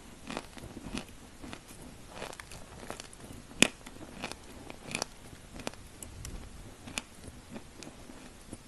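Person biting and chewing pieces of edible chalk: irregular crisp crunches and crackles, the sharpest crack about three and a half seconds in.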